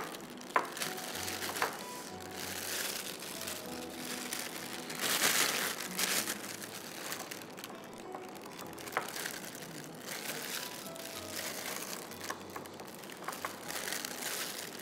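A plastic piping bag crinkling as chocolate ganache is spooned into it with a spatula, loudest about five seconds in, over faint background music.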